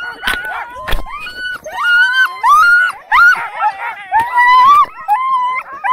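A team of sled dogs in harness yelping, whining and howling together, many overlapping cries rising and falling in pitch, loudest in the second half, as the team waits to run. A few sharp knocks sound near the start.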